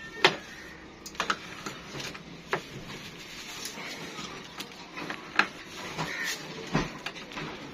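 A few scattered clicks and knocks, irregular and well apart, over a low steady hiss.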